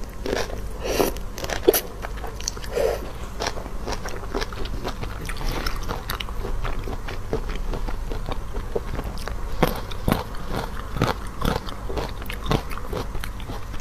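Close-miked eating: biting into and chewing spicy raw-marinated shellfish, the shells crunching and crackling in irregular bursts, the sharpest crack nearly two seconds in.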